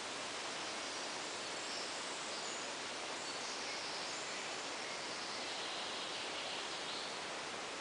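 Steady outdoor background hiss, with a few faint high chirps over the middle of the stretch.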